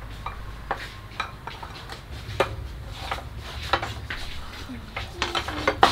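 Ceramic bowls and plates set down on a stone tabletop and spoons clinking against bowls: irregular light clinks and knocks, a few of them ringing briefly.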